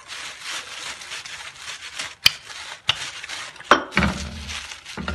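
Plastic shopping bags crinkling and rustling as a rolling pin rolls corn-flour dough flat between them, with two sharp knocks, about two seconds in and again near four seconds.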